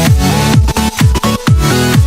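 Electronic dance background music with a steady beat: a punchy kick drum, with the bass falling in pitch on each hit, under synth notes.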